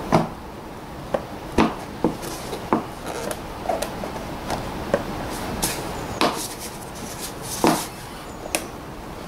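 Plastic airbox cover of a Volvo V70 being fitted back onto the air filter housing: a string of irregular sharp plastic knocks and clicks as it is pushed and worked into place, the loudest just after the start and again near the end.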